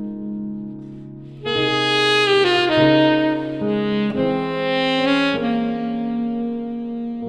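Saxophone playing a slow melodic phrase with note bends over sustained keyboard chords. The saxophone comes in about a second and a half in, over chords already sounding.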